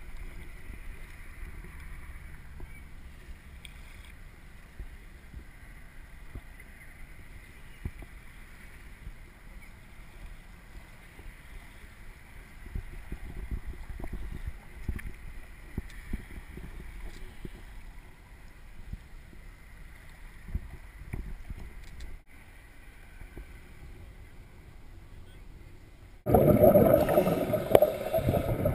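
Muffled water noise, a low rumble with faint scattered clicks and knocks. Near the end a much louder rush of water noise starts suddenly.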